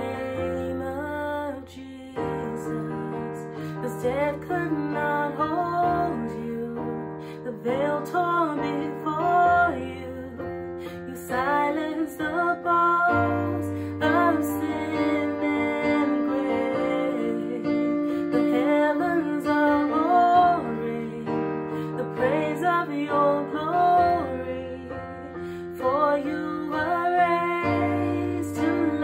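A woman singing a song solo over an accompaniment of long held chords, her voice sliding between sustained notes.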